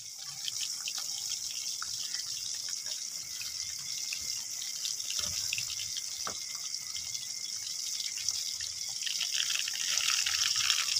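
Food frying in hot oil in a pan: a steady sizzle with scattered small crackles and pops.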